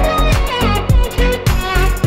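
Background music: a string melody with sliding notes over a heavy, steady drum beat.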